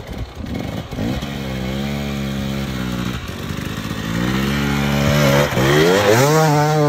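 Husqvarna enduro motorcycle engine riding up a gravel track, revving up three times with the pitch climbing on each throttle opening; the third is the loudest, near the end as the bike passes close.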